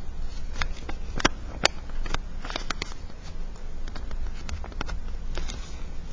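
A sheet of paper being folded and creased by hand, with irregular crinkling and crackling.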